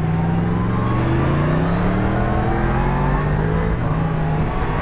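Motorcycle engines accelerating at speed: the revs climb for about three seconds, then hold steady, with wind rushing past.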